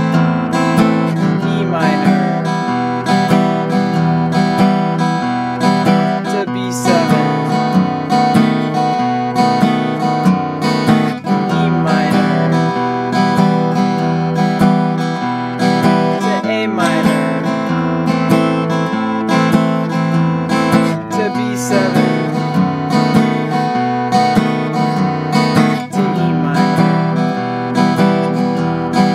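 Acoustic guitar playing a flatpicking pattern in E minor: a single bass-note pluck, then up, down and up strums, then an alternate bass-note pluck and up-down-up again. The rhythm is steady, and the chord changes every few seconds.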